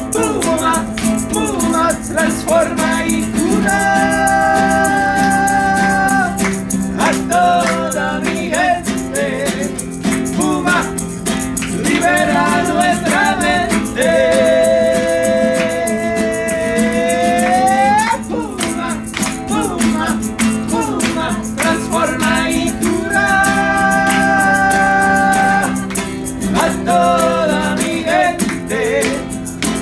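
Two men singing together to a strummed classical guitar and a steadily shaken maraca. The voices hold several long notes, one sliding upward to a stop about two-thirds through.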